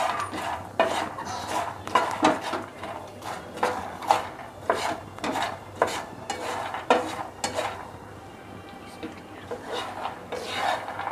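Spatula stirring and scraping puffed makhana (fox nuts) around a nonstick frying pan as they dry-roast in ghee. The seeds rattle and rub in a stroke about every half second, pausing for a couple of seconds near the end.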